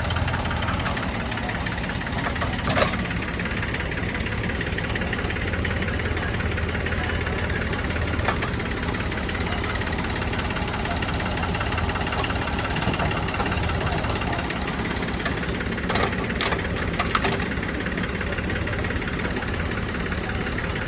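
Diesel engines of a backhoe loader and farm tractors running steadily, with a few short sharp knocks about 3 seconds in and again around 16 to 17 seconds.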